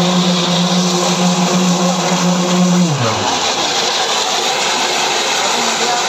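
Concrete paving machine running, its bank of immersion poker vibrators in the fresh concrete giving a steady high hum over the machine's broad mechanical noise. About halfway through the hum slides down in pitch and dies away, as the vibrators wind down, while the machine noise carries on.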